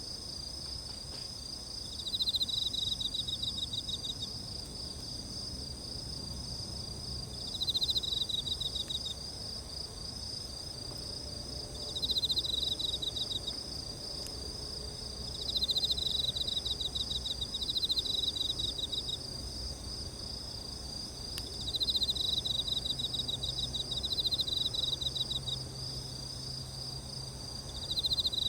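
Chorus of crickets: a steady, fast high chirping, with a louder pulsing trill that comes in spells of about a second and a half every few seconds.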